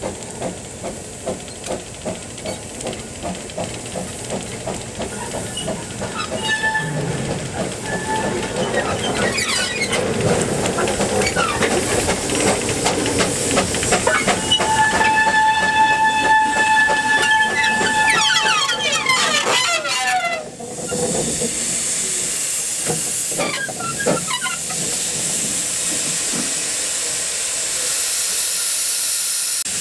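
Small steam locomotive working, its exhaust beat quickening as it gets going, with a short two-tone whistle blast and then a longer one of about four seconds near the middle. In the last third steam hisses steadily.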